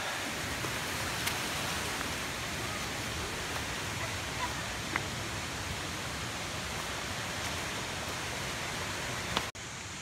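Steady rushing of flowing water, with a few faint clicks from footsteps on the stony path. The rush drops off suddenly near the end.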